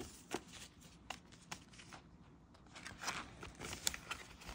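Paper banknotes rustling in the hands and being slid into a clear plastic binder pocket, with small scattered crinkles and clicks, busier about three seconds in.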